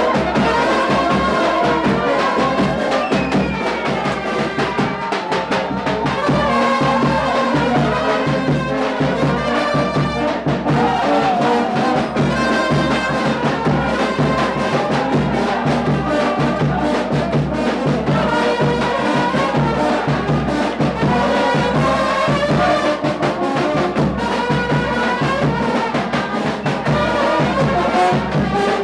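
Serbian trubači brass band playing live: trumpets and other brass playing a melody over a steady beat.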